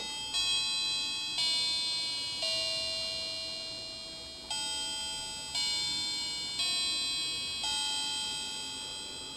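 Electronic chime unit of a battery quartz clock kit playing its chime melody: bell-like notes about one a second, each ringing and dying away, in four-note phrases with a short pause between them.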